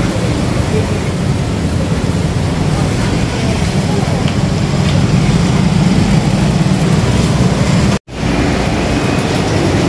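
Underground metro train running, a steady low rumble that grows a little louder midway, with voices in the background. The sound cuts out for an instant about eight seconds in.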